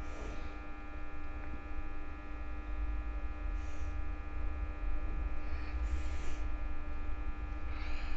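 Steady electrical hum with a low rumble beneath it, running unchanged throughout. A few faint, brief hisses come through about halfway and near the end.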